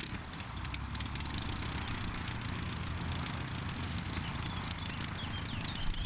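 Light aircraft engine idling steadily, with a constant crackling hiss over it.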